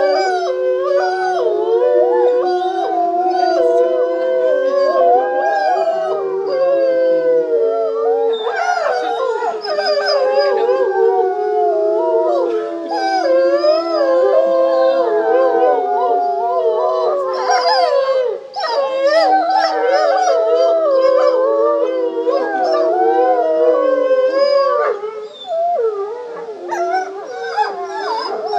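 A pack of gray wolves howling together in chorus: several long, overlapping howls at different pitches, some held steady and others gliding and wavering. Choppier, higher calls break in at times.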